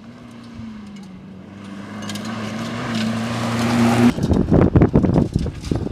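Off-road rally racing vehicle at speed: its engine sound builds from a steady hum, growing louder as it approaches, then turns loud and rough about four seconds in as it passes close by.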